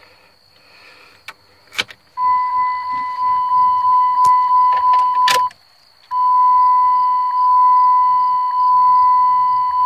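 Dodge Ram cab's warning chime sounding a loud, steady high-pitched beep after a few clicks of the key going into the ignition. It stops briefly just after a sharp click about five and a half seconds in, then starts again. The chime goes with the key on and the driver's door open: the dash shows a door-ajar warning.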